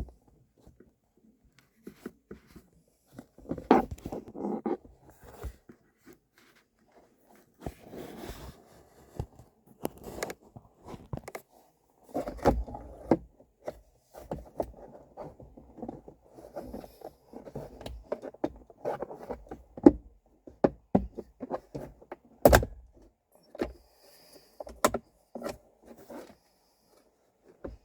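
Hands working on a Jeep Wrangler's interior to get at the cabin air filter: irregular sharp clicks and knocks of plastic parts between stretches of rustling handling.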